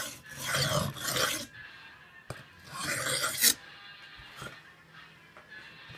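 Steel knife blade being stroked across a wet whetstone, a rasping grind in about three strokes over the first three and a half seconds, the last ending sharply, then quieter with a couple of small clicks.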